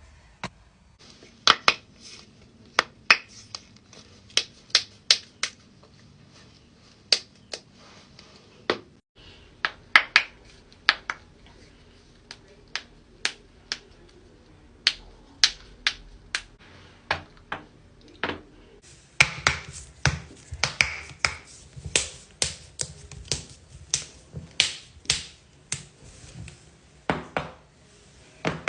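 Human joints cracking: a long run of sharp pops and cracks at irregular spacing, often several in quick succession. The faint background hum changes about nine seconds in and again about nineteen seconds in.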